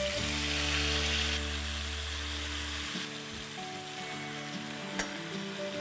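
Yogurt-marinated mutton sizzling and frying as it is spooned into hot ghee, with a sharp knock about five seconds in.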